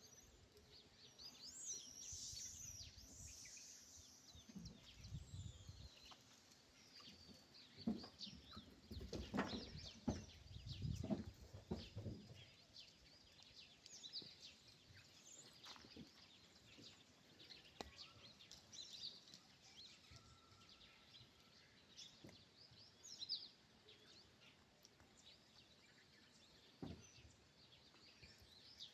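Faint chirping of small birds, short high calls scattered throughout, with a few low thumps or rumbles about eight to twelve seconds in.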